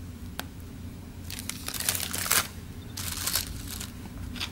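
Plastic piping bag of icing crinkling as it is squeezed and handled. There are short bursts of rustling, the main ones about a second in and again about three seconds in.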